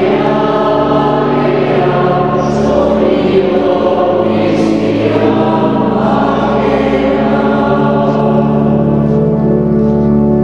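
Choral music as a soundtrack: a choir singing long, held chords.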